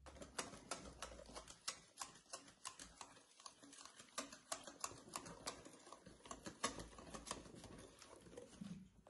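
Wire whisk beating a thick batter in a glass bowl: quick, uneven clicks of the whisk's wires against the glass, a few a second, over a soft wet stirring.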